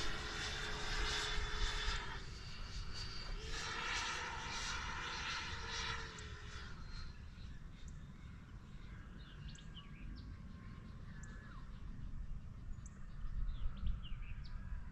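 Electric ducted-fan motor of a Boomerang RC Mini Viper model jet in flight: a high whine over a steady tone that swells twice during the first seven seconds, then fades away.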